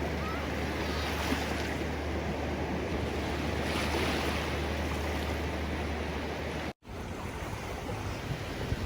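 Ocean surf: a continuous wash of waves, with a breaker surging up about a second in and again around four seconds. The sound drops out completely for a split second about seven seconds in, an edit join, then the wash carries on.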